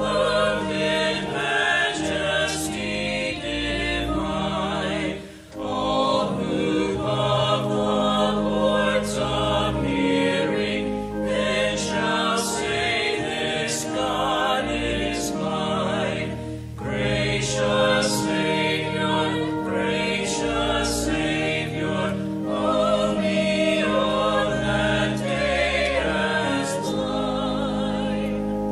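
A small choir singing a hymn, held notes with sung words, ending abruptly at the close.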